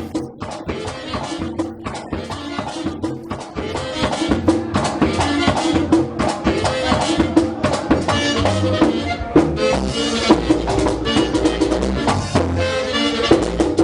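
Band playing Latin music with drums and shakers driving the rhythm, growing louder about four seconds in.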